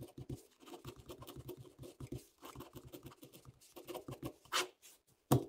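A pen writing block capitals on graph paper: a quick run of short scratchy strokes, with a longer, louder stroke near the end and then a sharp click, the loudest sound.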